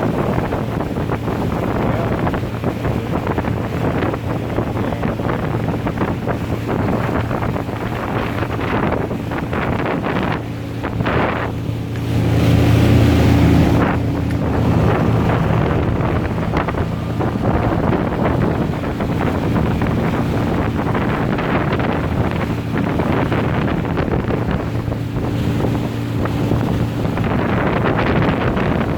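Motorboat engine running steadily under way, with wind buffeting the microphone and water rushing past the hull. The engine grows louder for a couple of seconds about twelve seconds in.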